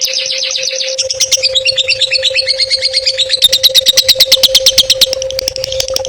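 Songbird singing a fast, rapid-fire series of sharp repeated notes, several per second, loudest in the middle, over a steady low hum.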